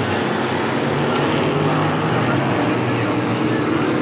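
Vintage modified dirt-track race cars running at speed in a pack, several engines sounding at once with their pitches overlapping and holding fairly steady.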